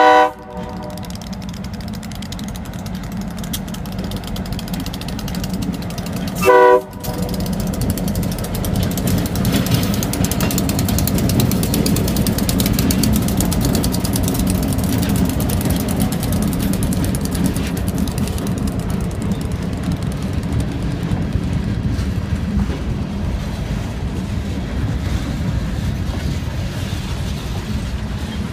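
Great Lakes Central freight train at a grade crossing: the diesel locomotive's horn gives two short blasts, one at the very start and one about six and a half seconds in. Then the two diesel locomotives rumble past close by, getting louder from about eight seconds in, and the freight cars roll by over the crossing.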